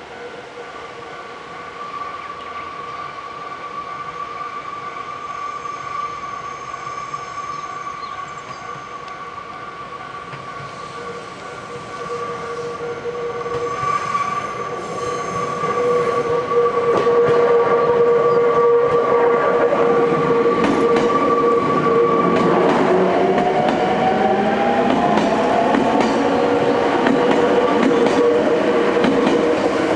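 Nankai Koya Line electric train approaching along curved track and running past close by, growing louder about halfway through. A steady high tone runs through the first two-thirds. Near the end the traction motors whine, rising in pitch.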